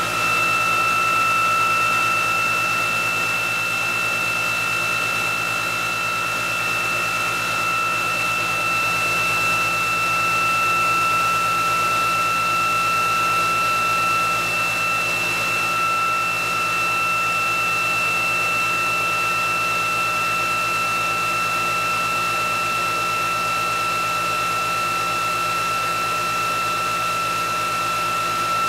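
Electric motor and generator test bench running steadily at speed: a continuous electric whine with two steady high tones over a broad mechanical hum.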